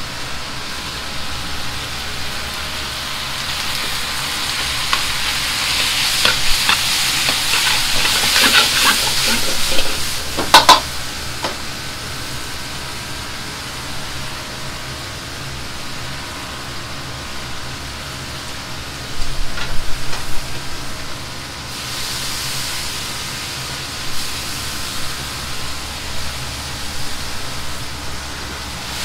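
Stir-frying in a wok over a high gas flame: steady sizzling over the burner's hum, with the ladle and wok clanking and clattering, sharply about ten seconds in and again around twenty seconds in.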